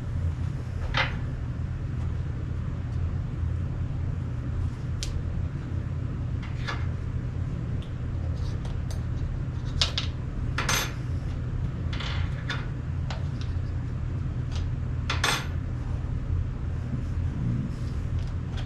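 Small metal shotgun parts clinking and clicking as they are handled and a pin is slid into place: about eight scattered sharp clicks over a steady low hum.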